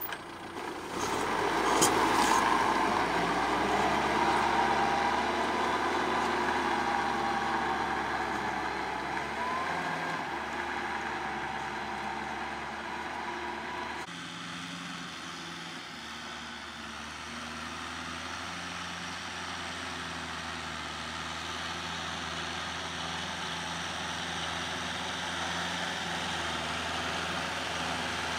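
Kubota M6040 tractor's four-cylinder diesel engine running under load while it drives a rotary tiller through the soil. Its pitch wavers in the first half, then the sound changes abruptly to a steadier note about halfway through.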